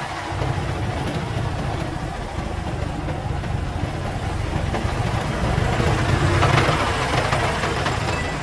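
Diesel engine of a loaded three-wheeled công nông dump truck running with a steady low rumble as the truck pulls away and drives past, loudest about six to seven seconds in.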